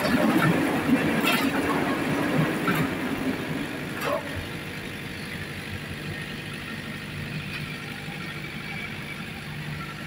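JZC concrete mixer running with a steady mechanical hum and a few short metal clanks in the first four seconds; it sounds quieter and steadier after about four seconds.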